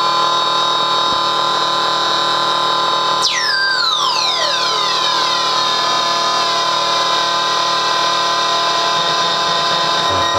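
Circuit-bent MFOS Weird Sound Generator synth droning a dense cluster of steady electronic tones. About three seconds in, a bundle of pitches drops in and slides slowly downward together over several seconds while the drone continues.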